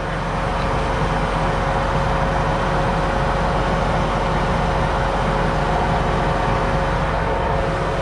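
John Deere 8260R tractor's 9.0-litre six-cylinder PowerTech diesel running steadily, with a faint steady whine over the engine rumble.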